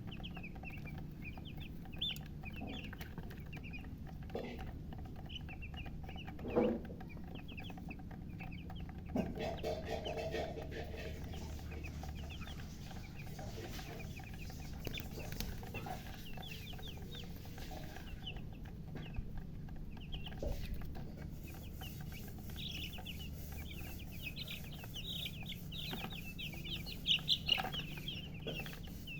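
A group of newly hatched chicks chirping loudly and continuously in rapid high peeps, busiest near the end, over a steady low hum; a few lower, louder calls break in about six and ten seconds in.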